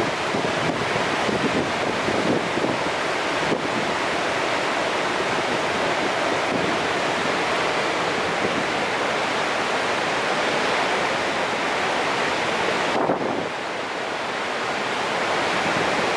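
The High Falls of the Genesee River, a large waterfall, making a steady, even rush of falling water. The sound drops slightly about thirteen seconds in, then swells back.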